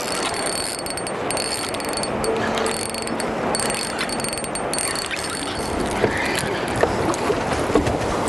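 Fishing reel clicking and ratcheting as a hooked redfish is fought to the boat, over a steady hiss of wind and water, with a few sharp knocks in the second half.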